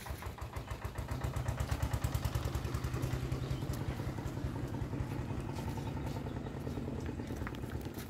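A small engine running steadily with a rapid, even chugging; its hum grows louder about a second in.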